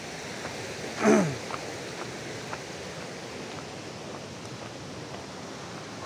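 A stream rushing steadily. About a second in, a person's voice gives one short call that falls in pitch.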